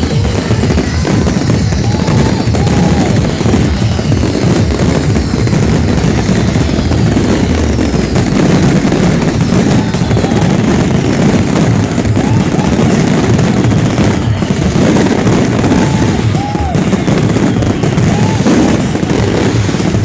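Fireworks finale: many aerial shells bursting at once in a rapid, unbroken barrage of booms and crackles.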